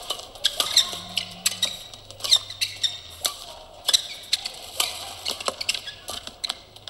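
Badminton doubles rally: racket strings striking the shuttlecock in quick, irregular exchanges, and players' shoes squeaking on the court mat.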